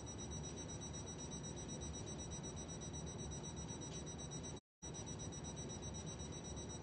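Steady room tone: a low hum and hiss with faint, thin high-pitched whines held throughout. The audio cuts out to total silence for a split second about two-thirds of the way through.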